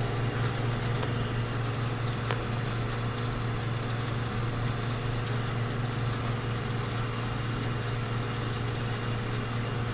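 Steady low electrical hum of a microwave oven running at power while sustaining a plasma in an evacuated chamber, with the vacuum pump running alongside.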